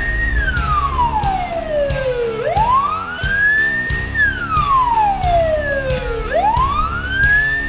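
Siren wailing in slow sweeps: the pitch climbs, holds briefly at the top, then slides down, repeating about every four seconds. It is the alarm for a fire-engine turnout.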